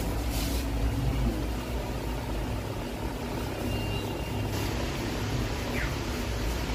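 Steady low rumble of background noise, with a faint thin tone about three and a half seconds in.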